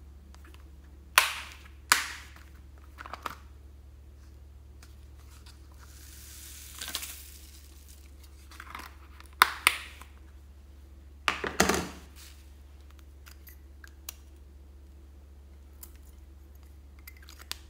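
Hands handling a plastic box and tub: sharp plastic clicks and snaps, then a soft rush of tiny foam beads pouring into a glass bowl about six seconds in. A crackly cluster of plastic clicks and taps follows near the middle, with a few light ticks later.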